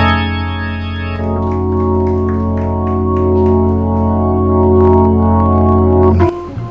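Dramatic organ sting: a loud, held organ chord that shifts to a second chord about a second in, holds, and cuts off near the end.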